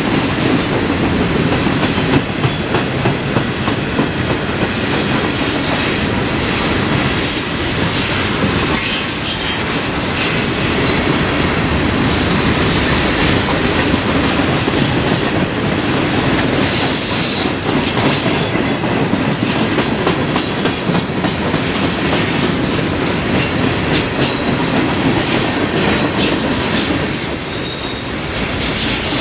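Freight cars of a long manifest train rolling past close by: a steady rumble and clatter of steel wheels on the rails. Short high squeals from the wheels come a few times.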